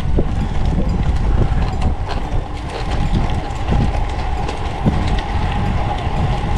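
Road bike rolling fast over a rough, coarse asphalt path, picked up by a handlebar-mounted action camera. There is a loud, steady rumble of wind and road vibration, with constant small knocks and rattles from the bike.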